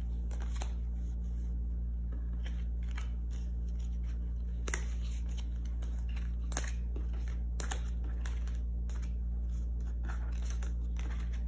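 Tarot cards being picked up off a table and stacked into the deck: scattered light clicks and taps of card edges on the tabletop and on each other, over a steady low hum.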